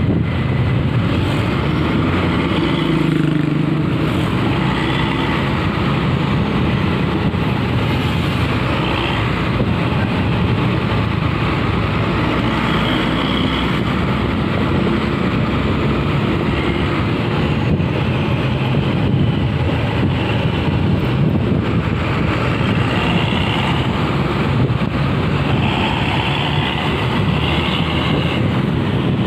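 Steady road traffic noise from close behind a rear-engined Hino RN coach: a low engine drone mixed with tyre and wind noise, with no sudden events.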